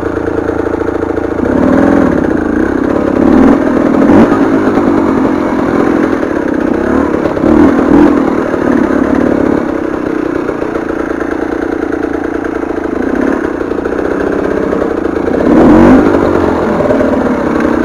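KTM 300 TPI two-stroke enduro engine running at low revs, with short throttle blips about two, four and eight seconds in and a stronger rev near the end.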